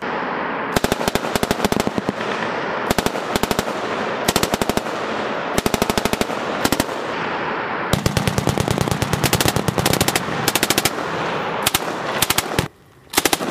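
M249 light machine guns firing 5.56 mm rounds in short automatic bursts, one after another, with a longer string of fire past the middle.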